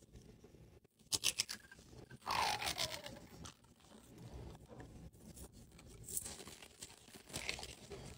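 Clear plastic wrap being picked at and peeled off a plastic toy capsule ball, crinkling and crackling. A few sharp clicks come about a second in, followed by a louder tearing stretch, with smaller crackles after.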